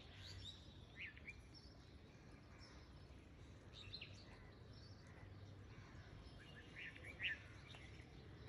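Near silence: room tone with a few faint, short high chirps, the clearest about seven seconds in.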